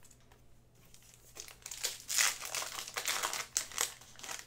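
Foil wrapper of a Panini Prizm basketball card pack crinkling as it is torn open by hand. The crinkling starts about a second and a half in and is loudest about halfway through.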